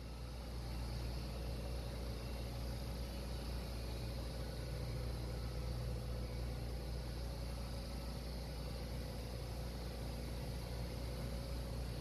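Marine air-conditioning compressor and its electric drive motor running, giving a steady machinery hum.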